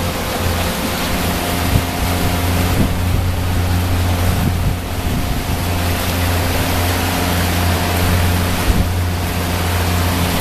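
Honda four-stroke outboard motor running steadily at speed, with water rushing past the hull.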